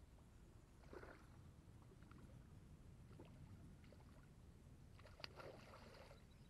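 Faint splashing of a hooked trout thrashing at the water's surface near a landing net, in two short bouts, about a second in and again around five seconds in, over a low steady rumble.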